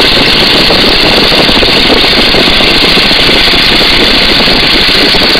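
Boeing-Stearman N2S-3 biplane in flight: its radial engine and propeller running steadily under heavy wind rush over the open cockpit.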